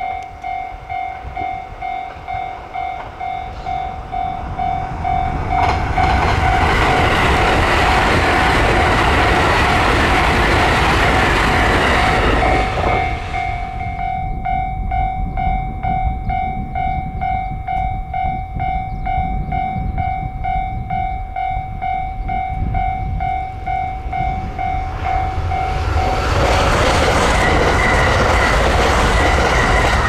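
A level-crossing warning bell rings in a steady pulsing beat throughout. A JR West limited express electric train passes with a loud rushing rumble from about five seconds in to about thirteen seconds in. A second loud passing rush builds near the end.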